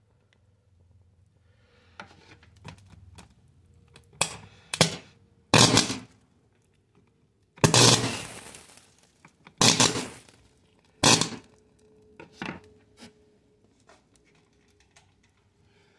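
Sparker firework going off: a run of sharp bangs and short spraying bursts, about six loud ones between four and eleven seconds in, the longest around eight seconds in trailing off over about a second, then a few fainter pops.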